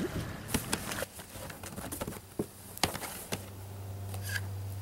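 Scattered sharp clicks and knocks of a folding plastic boat's panels being handled and unfolded into a hull. A steady low hum sets in a little past three seconds.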